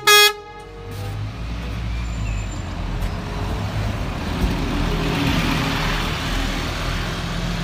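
Scania city bus engine running, a steady low hum with a rush of noise that grows louder through the middle. It opens with a brief loud tone.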